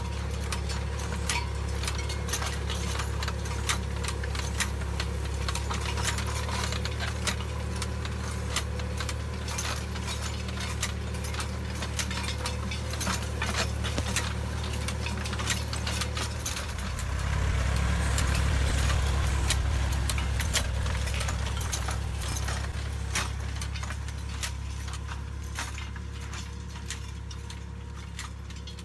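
Tractor engine running steadily while a tractor-mounted Kadıoğlu EKO sensor-arm under-row vineyard hoe works the soil, with frequent sharp clicks and rattles from the hoe and its linkage. It grows louder about 17 seconds in, then fades toward the end.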